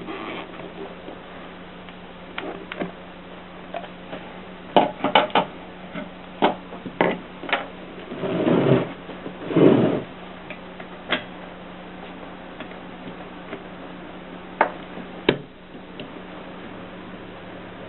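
Mercedes typewriter being worked: sharp mechanical clacks at an irregular pace, with two longer rasping mechanical noises about eight and ten seconds in, over a faint steady hum.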